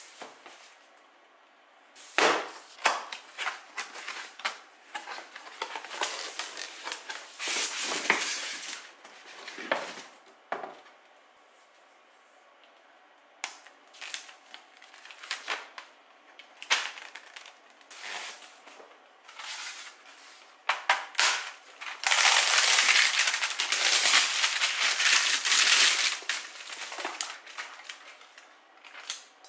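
Unboxing handling sounds: a cardboard box being turned and opened, with sharp knocks and clicks, and paper leaflets and plastic wrap rustling. About three-quarters of the way through comes a loud, steady stretch of crinkling plastic film being pulled off the multicooker pot and lid.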